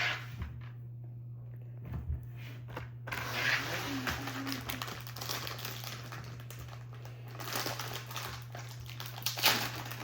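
Plastic wrapper of a Peeps marshmallow pack crinkling as it is handled and opened, starting about three seconds in, over a steady low hum.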